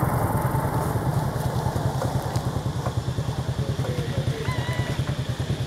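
Steady low rumble of a small engine running at idle, pulsing quickly and evenly, with a few faint high chirps near the end.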